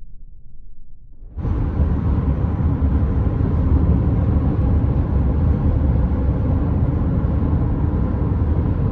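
Steady rumble of a car driving at highway speed, road and engine noise, cutting in abruptly about a second and a half in and holding loud and even.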